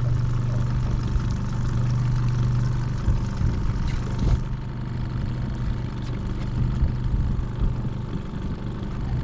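Boat outboard motor running steadily at low trolling speed, a constant low hum, with a single knock about four seconds in.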